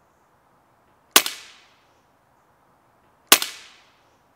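Two sharp air rifle shots about two seconds apart, each a sudden crack that dies away over about half a second.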